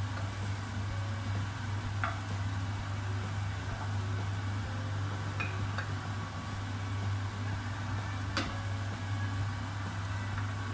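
Steady low hum with an even hiss over it, typical of a kitchen appliance or pan running, with a few light clicks of utensils about two, five and eight seconds in.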